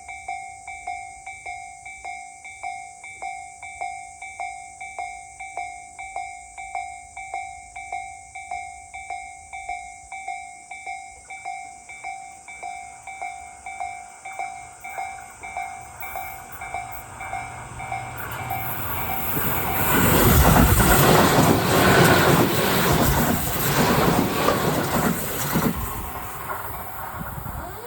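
Japanese level-crossing warning bell clanging at about two strikes a second. Then a Tobu 8000 series electric commuter train comes through the crossing, its wheels on the rails building up and loudest from about 20 seconds in, and the noise eases near the end.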